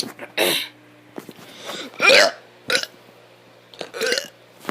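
A kid burping: four short burps with pauses between them, the loudest about two seconds in.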